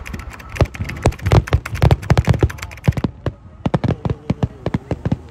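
Fireworks display: aerial shells bursting one after another, with a dense run of deep bangs over the first three seconds, then sparser, sharper crackling pops.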